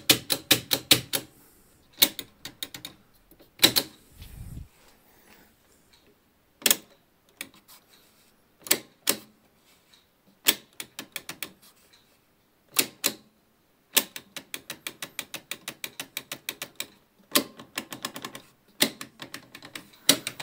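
Sharp mechanical clicks of the Philips radiogram's push-button switches and controls being worked by hand, some single and some in quick runs of several a second, the longest about two-thirds of the way in. No hum or sound comes from the set: it is completely dead, with a tripped thermal fuse as the cause.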